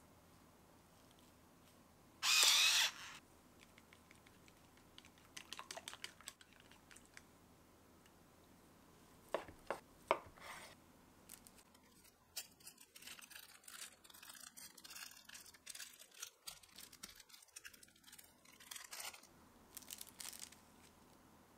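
A short loud rasp about two seconds in as pepper is ground into the egg mixture. Near the middle, a few sharp knife strokes cut through imitation crab sticks onto a wooden cutting board. Later, thin plastic film is peeled off a crab stick with a long run of crinkling and tearing.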